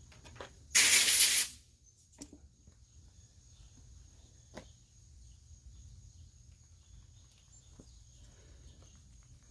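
A short, loud hiss lasting under a second, about a second in, followed by a few faint, scattered clicks.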